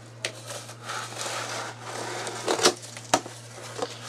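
Cardboard shipping box being handled and opened: scraping and rustling with a few sharp knocks and clicks, over a steady low hum.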